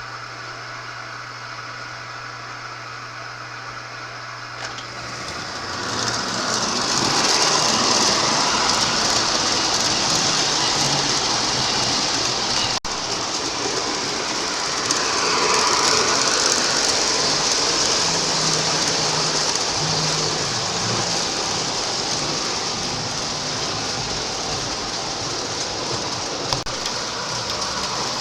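Lionel O-gauge model subway train running on three-rail track. A low hum comes first; about five seconds in, the steady rolling whir of the motor and wheels starts up and carries on, with a brief dip and rise in pitch midway.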